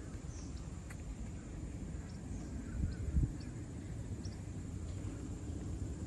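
Outdoor pond-side ambience: a steady low rumble with a few stronger gusts, like wind on the microphone, and faint short bird chirps scattered throughout.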